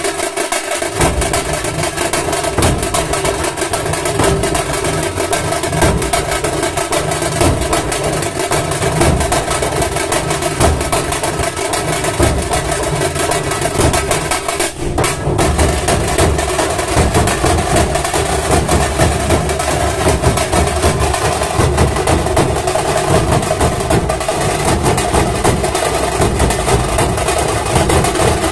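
Dhol-tasha troupe drumming: many barrel dhols and tashas beating a loud, dense, continuous rhythm.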